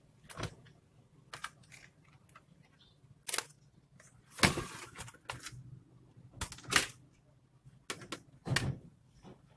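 Irregular plastic clicks and light knocks of laptop parts being handled, with a longer scraping noise of about half a second a little past four seconds in and a sharp knock near seven seconds.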